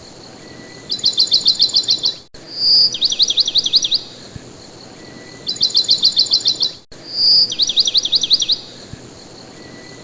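Looped recording of bird song: a short high whistle, then a fast run of about eight chirps, and a second run of about ten chirps a couple of seconds later. The whole phrase repeats identically about every four and a half seconds, with a sharp cut at each repeat.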